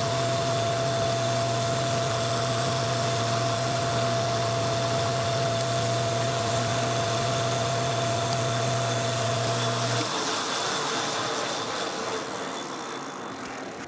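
Metal lathe running steadily with a motor hum and a steady whine, then switched off about ten seconds in and spinning down.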